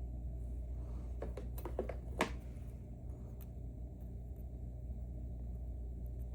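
A few small, light clicks and taps from handling the parts of a disassembled dimple lock while its pin chambers are checked, bunched together between about one and two seconds in, with the sharpest near the end of that run and one more a second later. A steady low hum sits beneath.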